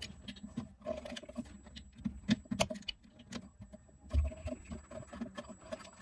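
Small clicks, rustles and scrapes of wire connectors being handled and pushed onto the terminals of a VW Beetle's brake light switch at the master cylinder, with a dull thump about four seconds in.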